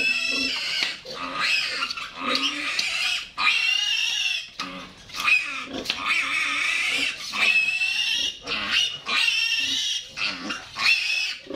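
A piglet, held up by its hind legs for treatment, squealing in distress: about ten long, loud, high-pitched squeals of roughly a second each, with only short breaks between them.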